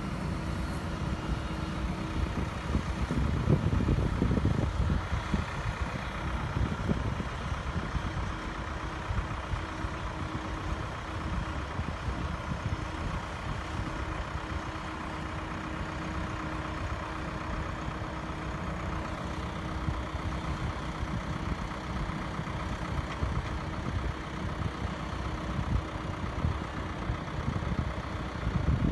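Deutz-Fahr Agrotron 6160 tractor's six-cylinder diesel engine running steadily under load while pulling a reversible plough through the soil, as the tractor draws away. Wind rumbles on the microphone, strongest a few seconds in.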